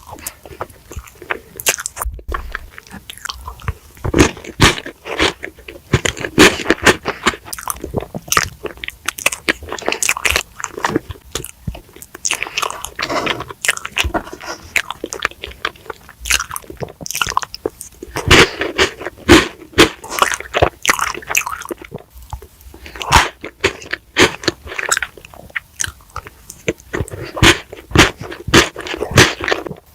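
Close-miked eating sounds: a person biting and chewing, with many short, crisp crunches coming in clusters.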